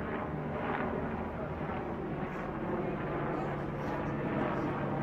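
Steady street traffic noise with a continuous low hum, and faint voices in the background.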